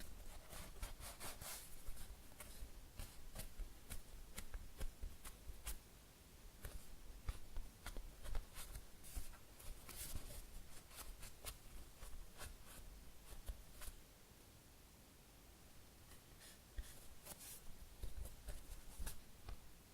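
Fingers handling and squeezing a very slow-rising foam squishy toy shaped like a cheesecake. The sound is many short, faint scratchy clicks and rubs, with a quieter stretch of a couple of seconds after the middle.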